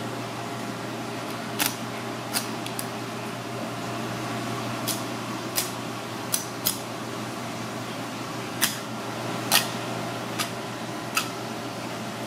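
Irregular sharp clicks and taps of a kitchen knife against a plastic cutting board as a red cornetfish is filleted, about a dozen over the stretch, over a steady background hum.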